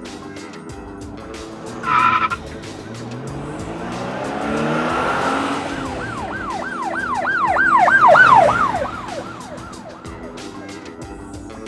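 Background music with a steady beat. Partway through, a sweeping sound effect rises and falls in pitch about four times a second for a few seconds.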